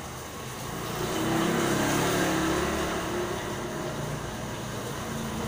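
A motorbike engine passing close, growing louder about a second in and easing off toward the end, over a steady hiss of rain.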